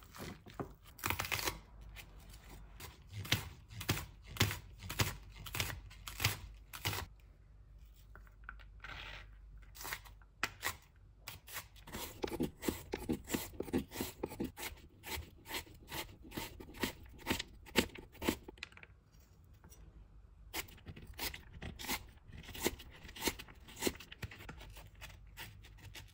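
Large knife chopping carrots on a plastic cutting board: a long run of crisp chops, a couple a second, coming faster in spells as the slices are diced.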